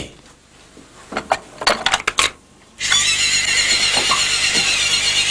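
A few clicks and knocks, then about three seconds in a battery-powered electric toothbrush switches on and buzzes steadily and high-pitched as it scrubs a toilet bowl.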